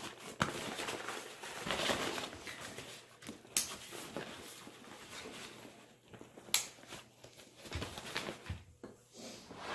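Nylon hiking backpack being handled: fabric rustling and scuffing as hands pull its drawcord and pat down the top lid, with two sharp clicks from the pack's fittings.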